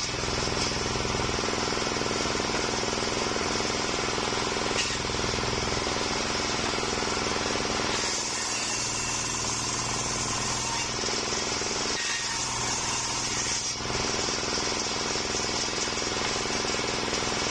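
Homemade circular sawmill run by a stationary engine, its large blade ripping a waru (sea hibiscus) log lengthwise into boards. The engine's steady running sits under the noisy cutting of the blade, which eases briefly about eight seconds in and again around twelve to fourteen seconds in between passes.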